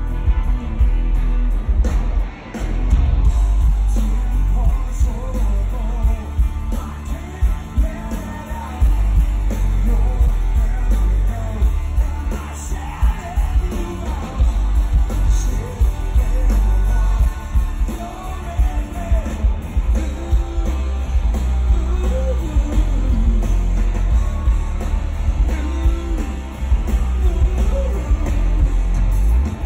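Rock band playing live: electric guitars, drums and bass under a male lead vocal, with heavy low end.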